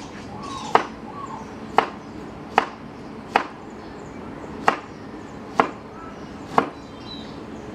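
A knife chopping a cucumber on a cutting board: seven sharp, single chops, roughly one a second and unevenly spaced.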